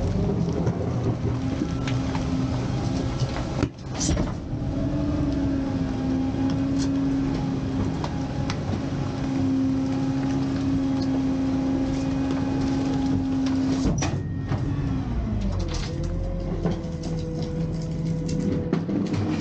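McNeilus rear-loader packer running a compaction cycle: the hydraulics and the truck's engine make a steady whine under load as the sweep and slide panels drag garbage out of the hopper. There is a clunk about four seconds in, and the pitch drops about fourteen seconds in as the cycle changes stroke.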